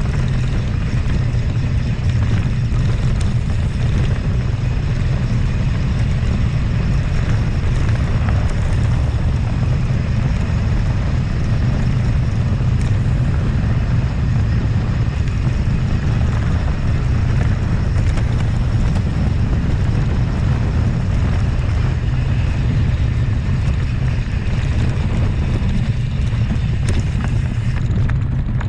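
Steady wind buffeting on the microphone of a camera riding on a mountain bike, with the rumble of the bike on a rough trail and a few knocks from bumps.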